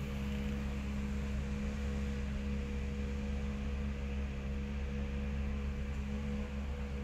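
A steady low hum with a few held tones over a faint hiss, unchanging throughout.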